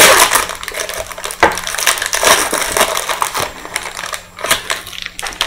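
Plastic wrapper of a football trading card pack crinkling and crackling as it is torn open and the cards are pulled out of it.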